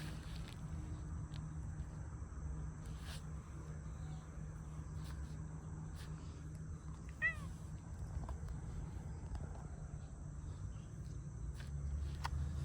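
A cat gives one short meow about seven seconds in, over a steady low background rumble.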